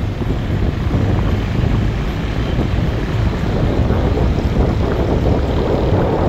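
Steady rumble of a car driving along a winding road, road and engine noise mixed with wind buffeting the microphone.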